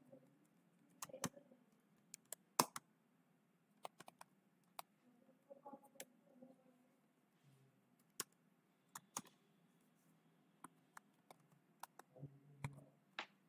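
Computer keyboard typing: faint, irregular keystrokes with short pauses between them.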